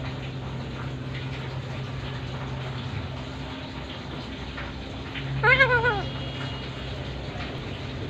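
A single wavering, pitched call from an Alexandrine parakeet about five and a half seconds in, lasting under a second, over a steady low hum.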